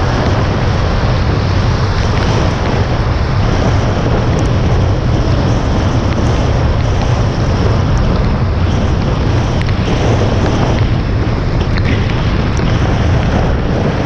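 Steady rush of wind and wet-road tyre noise from a car driving at speed in the rain, picked up by a camera mounted on the car's hood, with a strong low rumble and a few faint ticks.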